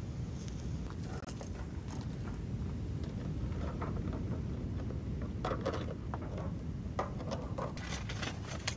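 Scattered metallic clinks and scrapes as tongs knock against a steel pot and boiling whelk shells and a crinkled aluminium foil tray is lifted off as a lid. The clatter grows busier in the second half. A steady low rumble runs underneath.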